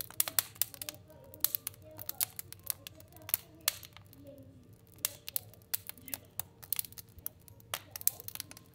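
Fire burning in a fireplace, crackling with irregular sharp pops several times a second over a steady low rumble.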